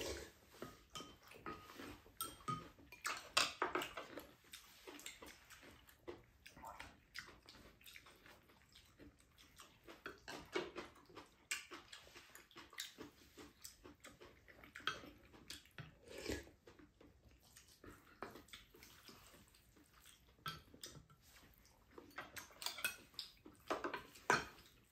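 Spoons and chopsticks clicking and scraping against ceramic bowls in scattered short sounds, with wet slurping of curry. The clicks come thickest a few seconds in and again near the end.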